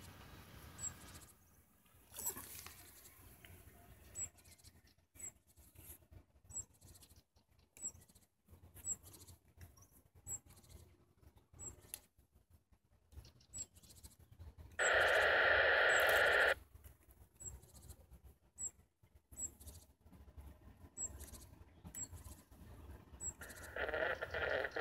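A distant ET22 electric locomotive sounds its horn once, for about a second and a half, about fifteen seconds in; this is the loudest sound here. Faint high chirps repeat about once a second, and near the end the approaching train's sound grows louder.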